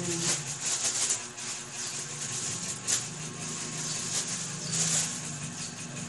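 Soft rustling and handling noise close to the microphone, in short irregular brushes, over a faint low steady hum.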